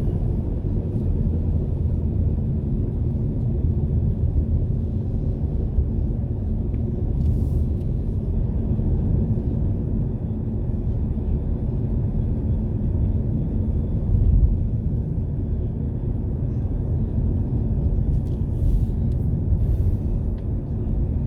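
Steady low rumble of road and engine noise inside a moving car, with brief faint hisses now and then.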